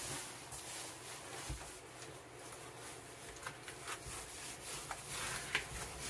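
Foil-faced bubble insulation window cover rustling and crinkling as it is pressed into a van's rear door window, with a few soft taps. Under it runs the steady whir of an electric tower space heater's fan.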